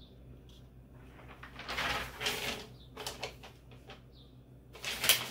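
Sheet of butcher paper rustling and crinkling in bursts as it is handled and laid on a heat press's lower platen, loudest just before the end.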